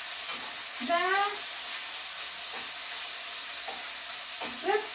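Bacon frying in a pan on the stove, a steady sizzling hiss. A short voice sound rises in pitch about a second in.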